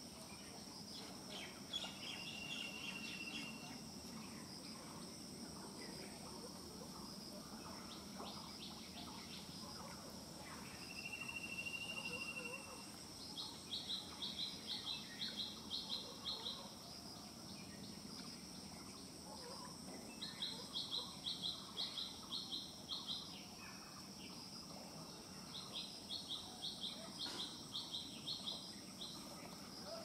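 Insects giving a steady, high-pitched drone, over which a bird calls: two drawn-out even notes, then three runs of quick repeated notes, about three a second, each run lasting a few seconds.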